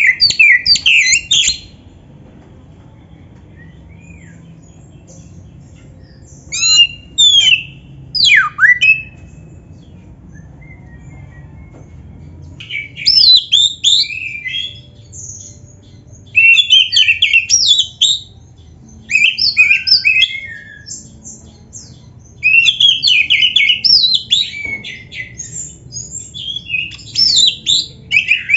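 Oriental magpie-robin (black-breasted kacer) singing loud, varied whistled phrases with fast sweeping notes. A burst opens, a few separate whistles follow after a pause, and from about halfway the song runs in rapid, near-continuous phrases.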